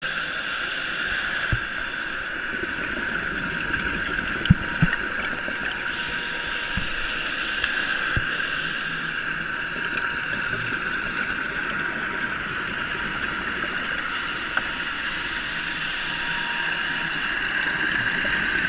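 Steady underwater hiss and faint hum picked up through a diving camera's housing, with a few soft knocks in the first half.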